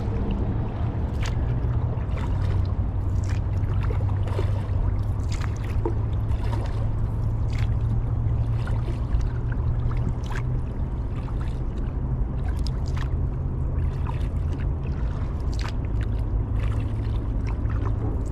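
A kayak being paddled along a calm river: short, irregular splashes and drips of water over a steady low rumble.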